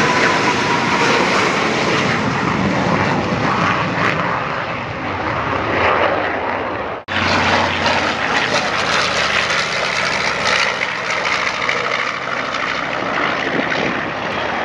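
Propeller aircraft engines running steadily. After an abrupt cut about seven seconds in, the drone of a B-25 Mitchell bomber's twin radial engines as it flies overhead.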